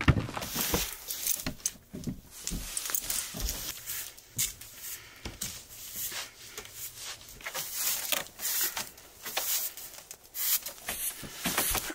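Rustling nylon tent fabric and irregular knocks and clicks as the Naturehike 12X air tent is handled and its base fastened by gloved hands on a wooden deck. A hard knock comes at the very start as a plastic cooler is set down on the boards.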